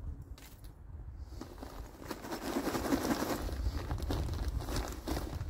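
Irregular rustling and scuffing of someone moving about on a garden bed, growing louder about two seconds in, over a low rumble.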